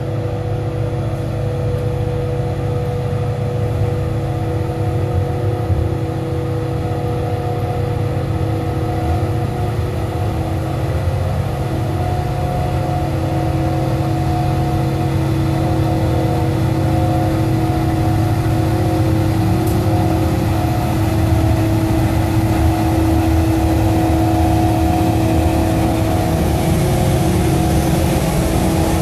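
Rail-grinding maintenance train working the track: a loud, steady heavy-machinery drone with several held tones. A hiss of grinding on the rails builds up near the end, as sparks fly from the rails.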